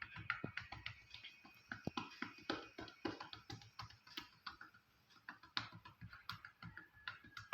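Cupped-hand chest percussion (clapping) in chest physiotherapy: a fast, steady run of soft pats on the patient over the left lung, several a second, done to loosen phlegm where rhonchi were heard.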